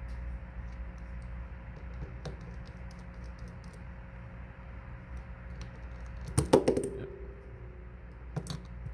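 Small scattered clicks and taps of repair tools and tiny screws being handled on a workbench, with a louder clatter about six and a half seconds in that rings briefly, like a small metal part set down.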